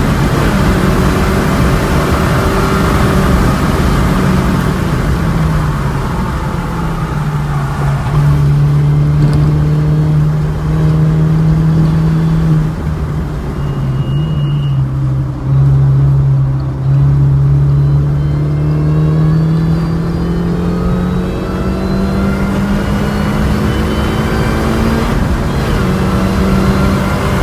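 Supercharged four-cylinder engine of a Mini Cooper S (R53) driven hard on a race track. The engine note falls as the car slows into a slower section, holds low with a few gear changes, then climbs steadily under full acceleration, with an upshift near the end, over steady road and wind noise.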